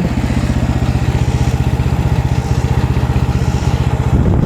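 MechMaxx SM32 sawmill's combustion engine running steadily, with an even, regular firing pulse.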